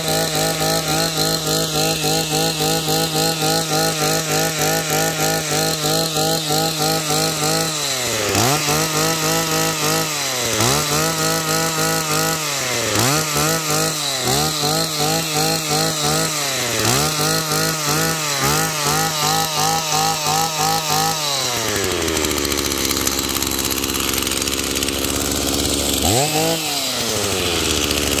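Stihl FS85 brush cutter's small two-stroke engine running at a steady fast idle, set a little high, then blipped about six times in a row, roughly every two seconds. Near the end it settles to a lower idle, with one more blip.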